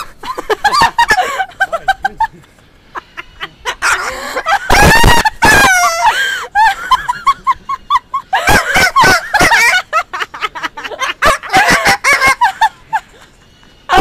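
White cockatoo calling: squawks and laugh-like cries, with a loud harsh screech about five seconds in, then a quick run of short, even notes.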